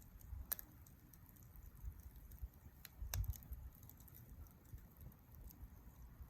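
Faint campfire crackling: scattered small clicks and pops from burning wood, with two sharper cracks about half a second and about three seconds in.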